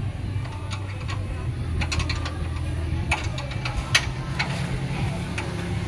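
A steady low mechanical hum under scattered sharp metallic clicks and clinks from hand work on a car's front suspension.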